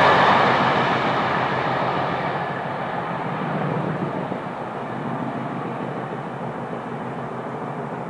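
Locomotive-hauled passenger train going away, the wheel-on-rail rumble of its coaches fading steadily as the tail of the train recedes.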